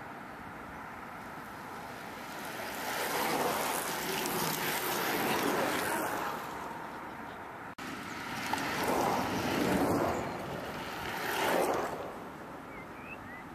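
Racing recumbent trikes passing close by on a tarmac track: a rush of tyre and air noise that swells and fades several times, the last pass the closest and sharpest.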